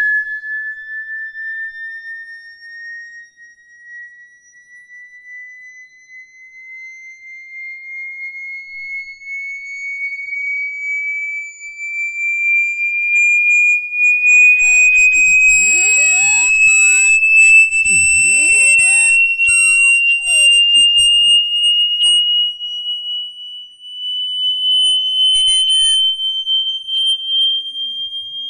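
An 18 cm brass Chladni plate sounding a slow sine-wave sweep: a single high-pitched pure tone gliding steadily upward. It swells louder in the middle stretch, where the plate resonates and a buzzing rattle joins the tone, then eases off again.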